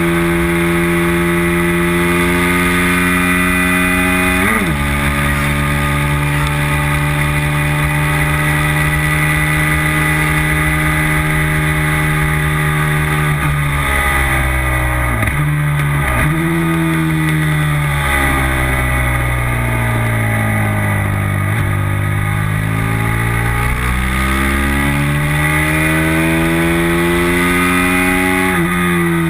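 Racing motorcycle engine running hard, recorded from an onboard tail-mounted camera with wind rushing over the microphone. The engine note climbs and drops sharply with an upshift about four seconds in, then holds high; around halfway it falls in several quick steps with brief blips as the rider downshifts, stays low through a corner, then climbs again under acceleration to another upshift near the end.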